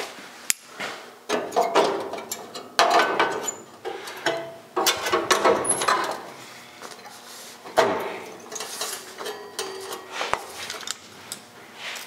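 A thin sheet-steel panel being handled and fitted against a car's bare steel door frame. Irregular clanks, taps and scrapes of metal on metal come through, several of them short ringing knocks.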